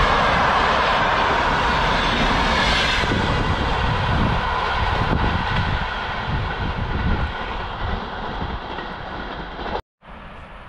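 A train passing by at speed, its loud rumbling noise fading steadily as it moves away. The sound cuts off suddenly near the end, leaving a much quieter background.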